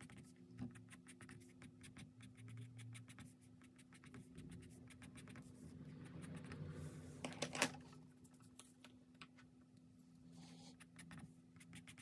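Caran d'Ache colored pencil scratching faintly on paper in many quick, short strokes, with a slightly louder run of strokes a little past halfway. A faint steady hum sits underneath.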